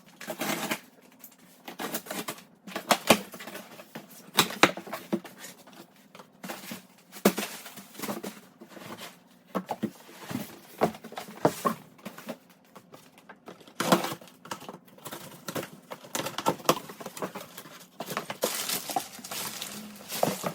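Cardboard shipping box being opened and unpacked by hand: irregular knocks, scrapes and rustles of cardboard flaps and packing material.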